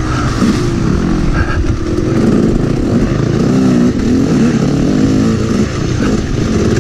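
Yamaha YZ250 two-stroke dirt bike engine, heard close up from the bike itself, revving up and down continually as it is ridden hard along a muddy trail, with wind noise.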